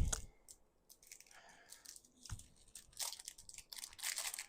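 Short rustling strokes of a soft-bristled brush being swept over a statue's silicone face to lift off stray bits, with a few small handling clicks. The strokes come in a cluster in the second half.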